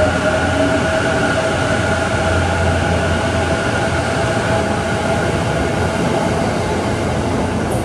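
Narita Express E259 series electric train pulling out and rolling past at low speed: a steady rumble with a whine that gradually fades away.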